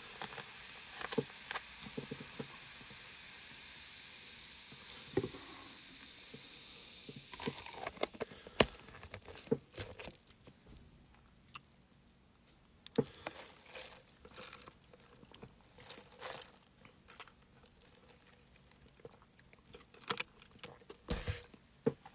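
Freshly poured cola fizzing in a plastic cup: a steady hiss of bursting bubbles that fades out about seven or eight seconds in. After it come scattered light clicks and taps from the plastic cup being handled.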